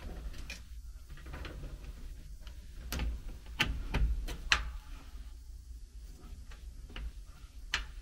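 Scattered light clicks and taps, about a dozen in all with a few louder ones around the middle, as meter test probes and leads touch and knock on the air handler's terminals and sheet-metal cabinet, over a low steady rumble.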